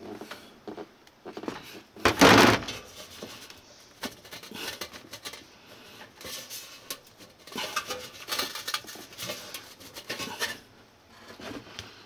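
Handling noise from a hand working inside a gas water heater's sheet-metal combustion chamber: scrapes, rubbing and light knocks against the metal. There is a loud scraping rattle about two seconds in and a denser run of scrapes and clicks later on.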